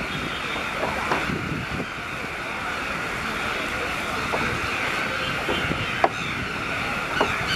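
Outdoor evening ambience by a city lake: a steady background hum with a constant high-pitched drone over it, and scattered short chirps and clicks, one sharper click about six seconds in.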